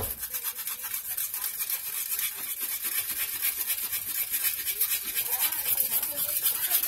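Hand scrubbing along the painted steel frame of a mini bike in rapid back-and-forth strokes, a steady hissing scuff, as the old paint is scuffed down for a patina finish.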